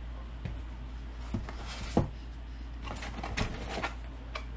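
Hands handling a small cardboard product box, folding its flaps open, with a few light knocks and rustling scrapes; the loudest knock is about two seconds in. A steady low hum lies underneath.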